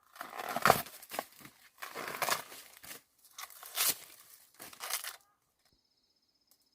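Rustling and crinkling in about five bursts, something being handled, stopping about five seconds in.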